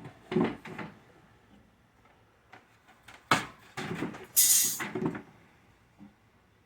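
Wooden beehive boxes and parts being handled: a few light knocks, a sharper knock about three seconds in, and a short scrape of wood on wood.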